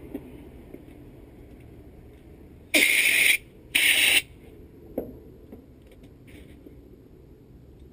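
Two loud bursts of even, rushing noise from a shop tool, each about half a second long and a second apart, followed by a single sharp click. They come during work on the countersunk set-screw hole of a C10 door handle.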